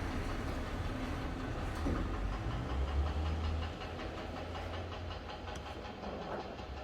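Low, steady rumble of an engine or traffic, swelling slightly midway.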